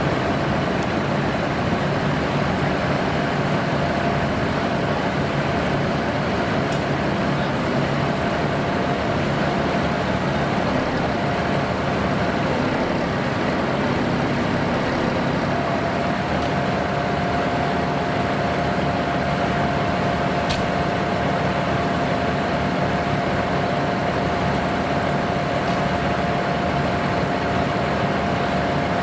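Farm tractor diesel engine idling steadily, with a thin steady whine over it that grows stronger and more even about halfway through.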